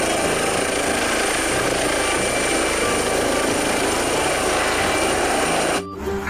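Eurocopter EC135 helicopter lifting off: loud, steady rotor and turbine noise with a thin, high, steady whine. It cuts off abruptly near the end.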